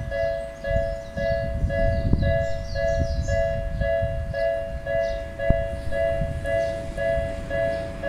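Japanese level-crossing warning bell ringing its electronic two-tone "kan-kan" at about two strokes a second, the crossing's warning active, over a low rumble.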